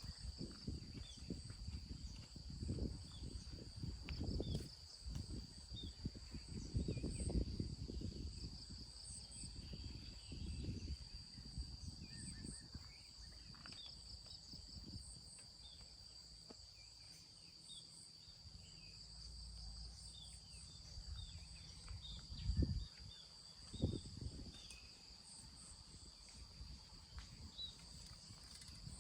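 Insects trilling steadily at a high pitch, over low rumbling noise, with two louder soft thumps about three-quarters of the way through.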